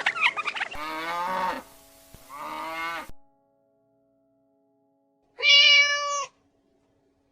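Three short animal cries, each a single drawn-out pitched bleat- or meow-like call, with a gap of about two seconds of silence before the last. The tail of a gobbling call runs into the start.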